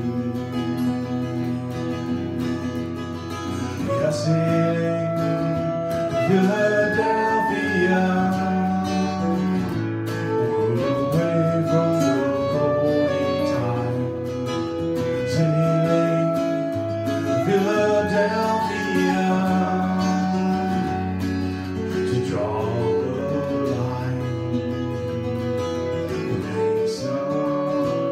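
Acoustic guitar strummed as accompaniment under a clarinet playing the melody in long held notes.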